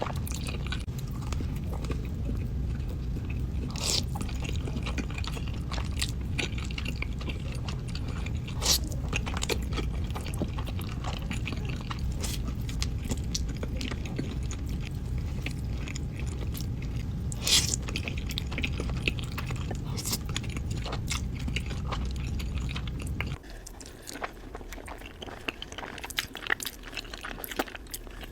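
Close-miked chewing of spaghetti, with many small sharp mouth clicks and a few louder ones. A steady low hum underneath cuts off suddenly about 23 seconds in.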